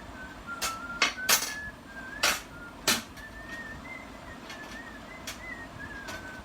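A person whistling a slow, wavering tune, with about five sharp clicks and taps from handling tools and parts in the first three seconds.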